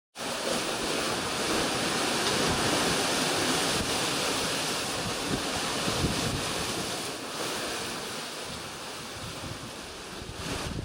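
Wind buffeting the microphone over the rush of sea water and waves around a sailboat under way at sea. It is a steady wash that eases a little after about seven seconds.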